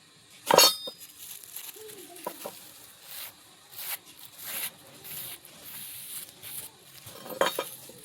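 Metal striking metal: a sharp ringing clink about half a second in, followed by a run of scraping strokes under a second apart, and another clink near the end.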